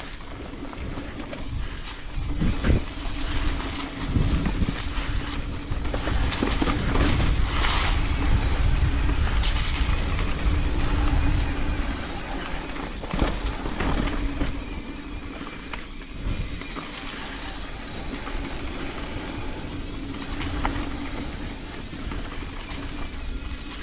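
Mountain bike rolling down a dirt trail: tyres rumbling over the ground, the bike rattling, with wind on the microphone and a steady hum underneath. The rumble is loudest in the middle, with a few sharp knocks over bumps.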